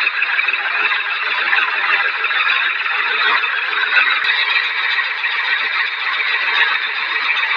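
Steady, rough engine-like drone with no breaks, the kind of tractor engine sound effect laid over toy tractor footage.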